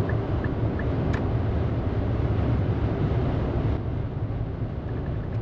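Steady road and wind noise inside the cabin of a Nissan Sakura electric kei car cruising at about 120 km/h, with a deep tyre rumble underneath. It eases slightly a little under four seconds in.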